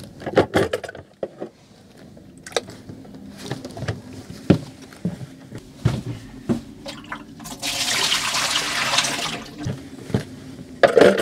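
Plastic clicks and knocks as a dehumidifier's water tank is pulled out and handled, then the collected water poured from it into a washbasin in a steady rush lasting about two seconds, two-thirds of the way in.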